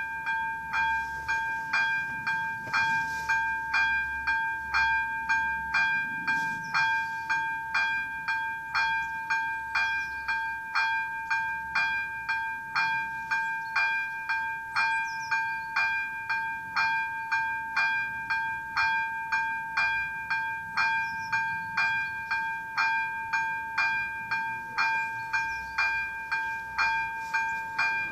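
Czech railway level-crossing warning bell ringing steadily, about two strokes a second over a continuous ringing tone, the signal that a train is approaching.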